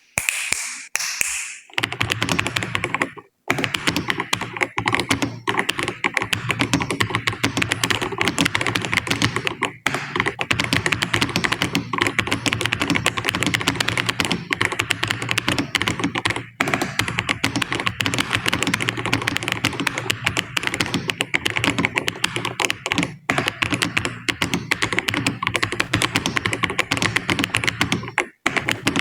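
Fast, continuous typing on a computer keyboard, a rapid steady patter of key clicks with only brief pauses, at a speed-test pace of about 73 words per minute. It is preceded by a short bright noise in the first second and a half.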